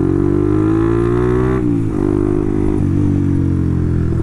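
Motorcycle engine with an aftermarket exhaust running under way. Its pitch rises steadily for about a second and a half, then drops suddenly and holds steadier. By the rider's account, the engine is not yet fully warmed up.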